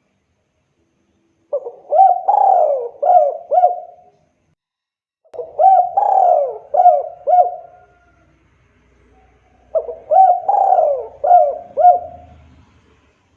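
Spotted dove (tekukur) cooing: three phrases a few seconds apart, each a quick run of about five arching coo notes.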